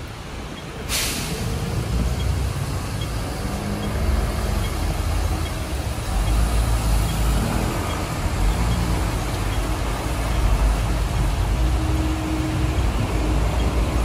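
City street traffic with buses and cars running past on a wet road, a steady low engine rumble throughout. About a second in comes a short, sharp hiss.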